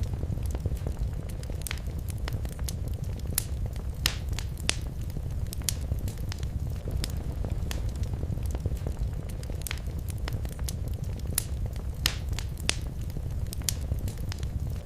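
Wood fire in a fireplace crackling steadily, with irregular sharp pops over a low, constant rumble of the flames.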